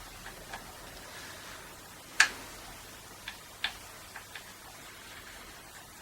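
Irregular small metallic clicks and taps as a screwdriver works screws out of a car radio's metal casing, with one sharper tap about two seconds in.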